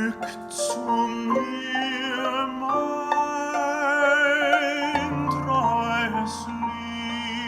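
Classical music: an operatic voice holds long notes with a wide vibrato over instrumental accompaniment.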